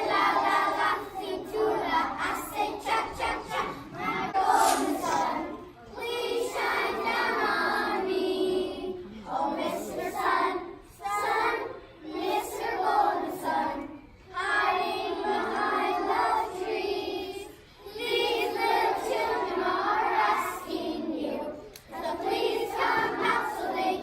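A group of children singing together, in sung phrases a few seconds long with short breaks between them.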